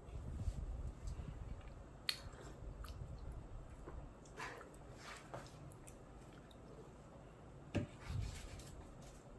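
Scattered light knocks and clicks, with rubbing sounds in between, over a low steady rumble; the sharpest knocks come about two seconds in and near the end.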